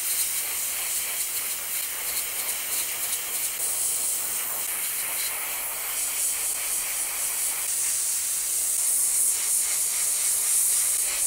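Airbrush spraying opaque white paint: a steady, high-pitched hiss of air and paint mist that grows slightly louder in the last few seconds.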